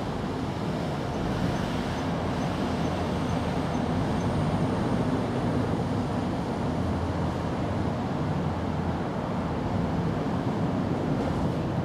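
Steady low outdoor background rumble, slightly fuller in the middle.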